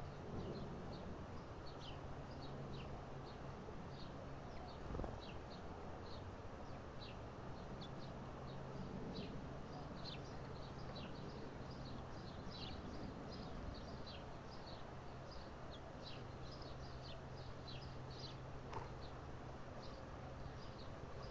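Small birds chirping: many short, high, down-slurred calls overlapping at an irregular pace. A steady low hum runs underneath, and there is a soft thump about five seconds in.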